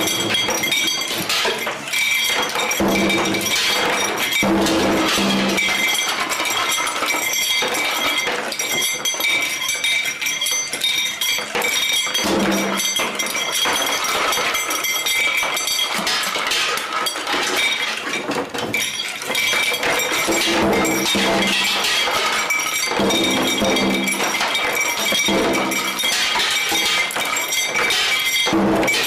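A continuous sound effect of rapid glassy clinks and crashes over steady high ringing tones, with louder passages that come back every several seconds as the effect repeats.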